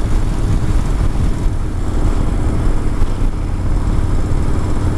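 Yamaha Bolt XV950R's air-cooled V-twin engine running steadily under way at road speed, with an even rush of wind noise over it.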